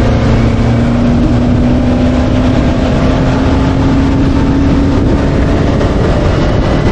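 Outboard motor running hard with the boat on plane, its pitch rising slightly, under a loud rush of wind and water noise.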